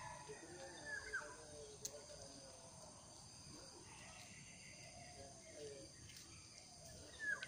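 Faint rural ambience: a steady high insect drone, with short falling bird chirps about a second in and again near the end.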